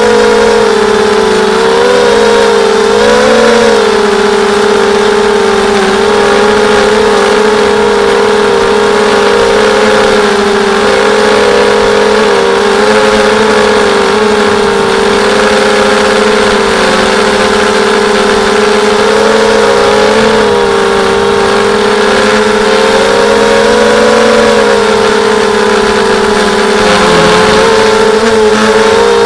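Mini X 260 quadcopter's brushless motors (DYS 1806 2300KV) spinning Gemfan 5030 props in flight: a loud, steady whine whose pitch rises and falls as the throttle changes, dipping briefly a few times.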